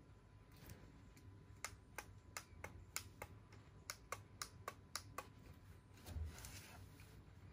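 Sharp plastic clicks of fingernails and fingertips on the handle and buttons of a 2-in-1 hair straightener brush, about a dozen in a quick irregular run, then a soft rustle near the end.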